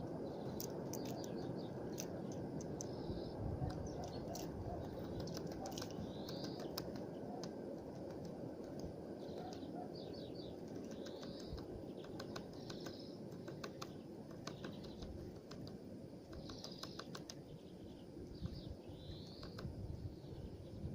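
Small birds at a feeder pecking at food in quick bursts of sharp taps. Short chirping calls repeat every second or two, over a steady low rumble of background noise.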